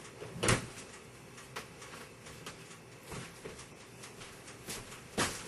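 Two sharp knocks, one about half a second in and one near the end, with scattered faint clicks and taps between them over a steady faint hum.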